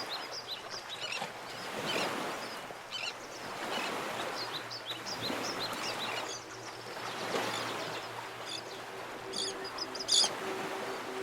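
Mountain stream rushing over rocks, with small birds chirping in short repeated calls and a louder run of chirps near the end. Soft, steady music tones fade in about halfway through.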